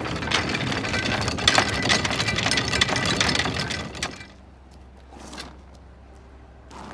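Galvanized steel anchor chain clattering link after link as it runs out over the dock edge, a fast, steady rattle that stops abruptly about four seconds in.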